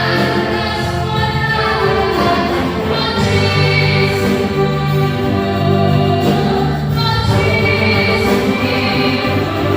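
A gospel band playing a Christian worship song live, with several voices singing together over a steady accompaniment with long held low notes.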